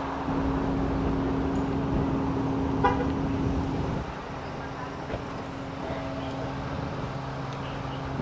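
Steady drone of an idling vehicle engine over traffic noise, with one short car horn toot about three seconds in.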